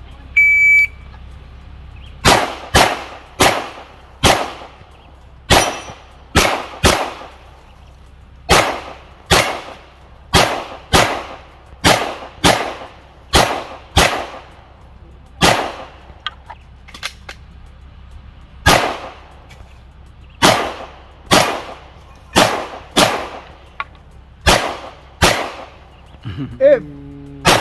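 A shot timer beeps once to start the run, then a handgun fires about two dozen shots over some 25 seconds, mostly in quick pairs with short gaps between strings as the shooter moves between targets. A brief voice is heard near the end.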